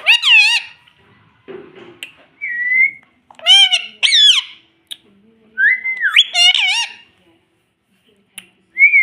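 Indian ringneck parrot giving a string of short whistled calls, each about half a second long and many sliding up and down in pitch, with pauses between them.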